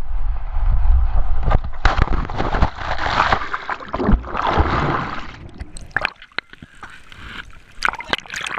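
Wind buffeting the microphone of a camera on a towed tube, then a crash into the sea: loud rushing and splashing water for a few seconds. After that the sound turns quieter, with bubbling, crackling water around the submerged camera and a few sharp splashes near the end as it breaks the surface.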